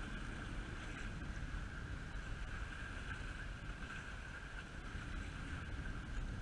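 Wind buffeting an action camera's microphone: a steady, gusty rumble with no breaks, and a faint steady high tone above it.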